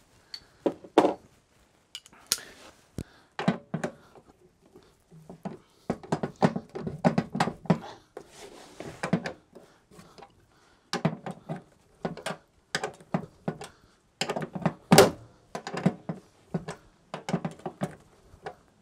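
Clicks and knocks of hand tools working the bolts of a van's seat base, in several bursts with short pauses between; one bolt is tight.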